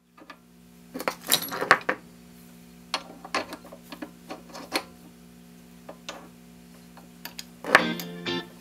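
Loose aluminium chips clinking and scraping as they are brushed off the face of a freshly faced aluminium workpiece on a mini lathe, in several short bursts over a steady low hum.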